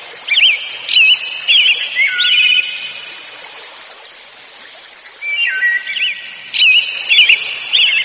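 Small birds chirping in short, quick, gliding phrases over a steady hiss, with a quieter spell in the middle before the chirping picks up again.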